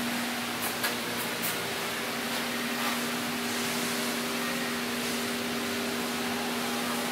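Steady electrical hum and fan hiss from powered machinery at rest, with one constant low tone and a second, higher tone joining about a second and a half in. A few faint clicks near the start.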